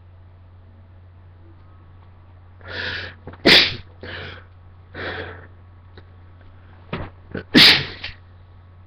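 A man sneezing, sneezes forced out through the nose: a burst of gasping breaths with a sharp sneeze about three and a half seconds in, then a second, loudest sneeze near the end.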